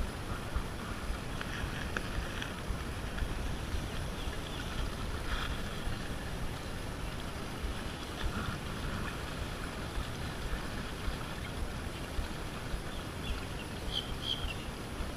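Steady wind noise on the microphone over small waves lapping against rocks at the water's edge, with a couple of faint high chirps near the end.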